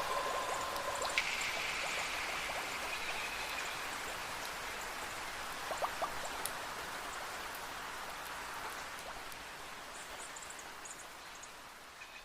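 Steady rain hiss with a bell ringing in the first few seconds, its clear tones held and dying away. The rain grows gradually quieter toward the end.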